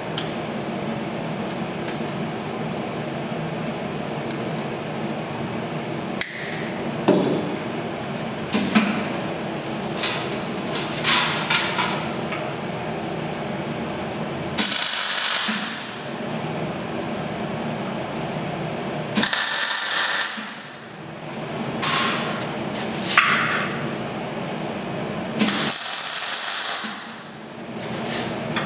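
MIG welder laying short tack welds on steel tube: three bursts of arc crackle, each about a second long, near the middle and toward the end. A few metal clanks come before them, over a steady hum from the running welder.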